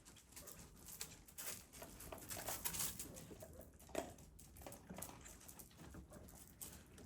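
Puppies playing: faint scuffling and pattering of paws with a few short yips.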